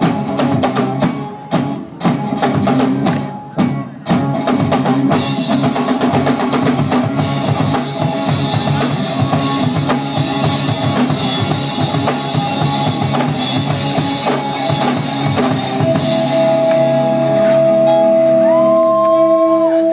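Live rock band playing an instrumental passage: separate drum-kit hits with short gaps for the first few seconds, then the full band with drums and cymbals, settling near the end into long held notes.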